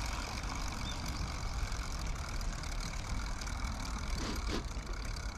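Spinning reel being cranked steadily to retrieve line, its gears giving a steady high whine with a gritty grinding: the reel is rough.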